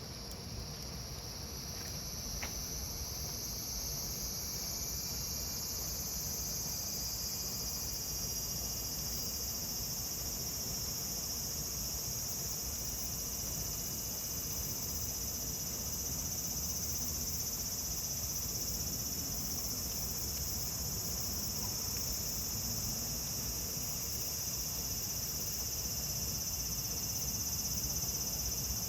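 A chorus of summer cicadas droning steadily, swelling over the first few seconds and then holding.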